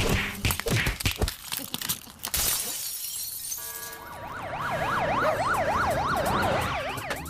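Cartoon sound effects: a quick series of knocks and clatters, a crash like breaking glass, then an alarm siren that wails rapidly up and down, about three sweeps a second.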